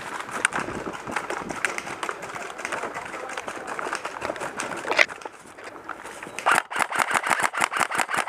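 Running footsteps through grass with gear rattling, a single sharp crack about five seconds in, then a rapid string of airsoft rifle shots, about eight a second, through the last two seconds.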